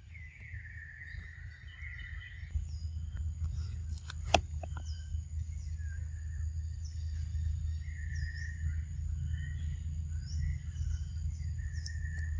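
Forest ambience: birds chirping on and off over a steady high insect buzz and a low rumble, with one sharp click about four seconds in.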